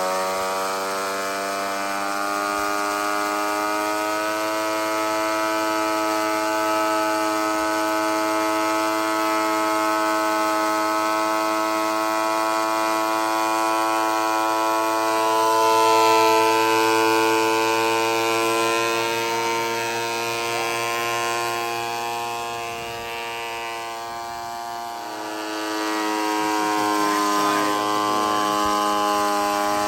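Ridgid benchtop thickness planer running with a steady motor whine. About halfway through it grows louder, with added hiss, as a plank feeds through the cutterhead. Near the end the level dips and then the pitch shifts slightly lower.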